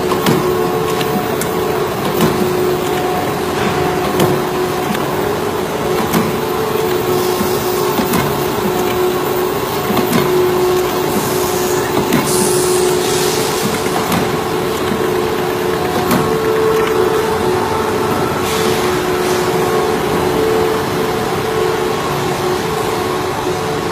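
Machinery running with a steady hum of several held tones, with scattered clicks and knocks at irregular intervals and a brief hiss about halfway through.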